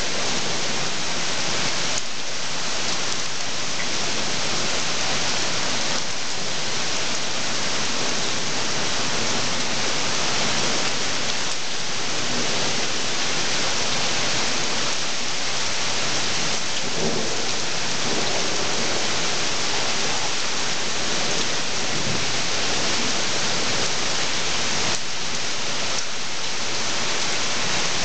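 Heavy rain pouring down steadily in a violent storm, a constant dense hiss of downpour.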